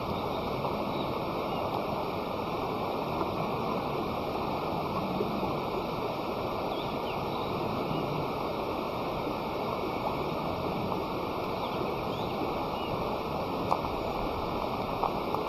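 Steady rushing noise like flowing water, with a few faint short high chirps and a sharp click near the end.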